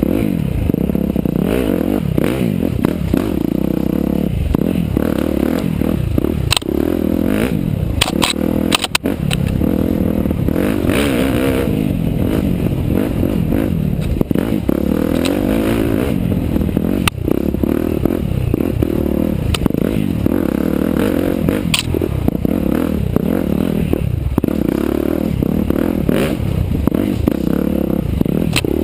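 KTM 305 SX-F four-stroke single, an HT Racing big-bore engine, revving up and down again and again under throttle on tight trail, heard close from the onboard camera. Sharp clicks and knocks come through here and there.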